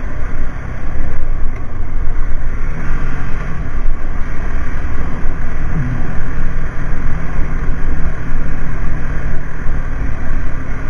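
Motorcycle running at road speed, with heavy wind noise buffeting the microphone over the engine. About six seconds in the engine note drops in pitch, then holds steady.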